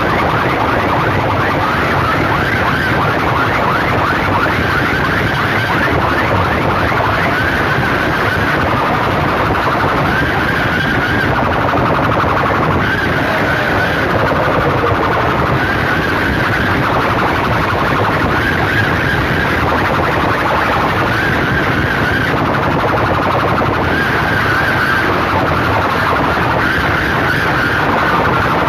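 Loud, distorted blare from massed horn loudspeakers playing a siren-like electronic tone. The tone comes in repeating pulses about every two seconds over a dense wall of noise, and there is a short falling sweep about halfway through.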